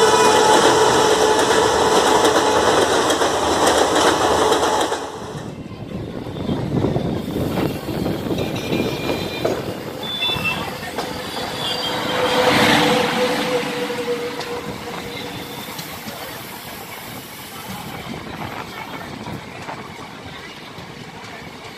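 Title-card intro sound of steady tones for about five seconds, then the rolling noise of an Indian Railways passenger train heard from an open coach door as an oncoming express passes on the next track. The oncoming electric locomotive goes by about twelve seconds in with a brief surge of sound and a steady horn note, followed by the rumble of its coaches passing close by.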